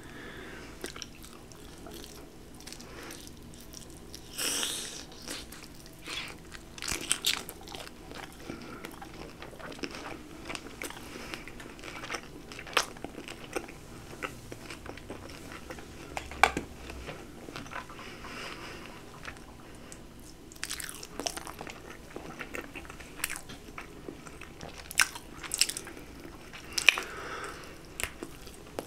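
Close-miked eating of chicken wings: biting, chewing and sharp crunches at irregular intervals.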